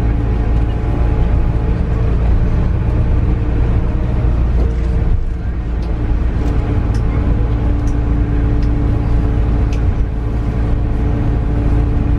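Airport apron bus driving, heard from inside the passenger cabin: a steady low engine drone and road rumble with a constant hum, easing briefly about five seconds in.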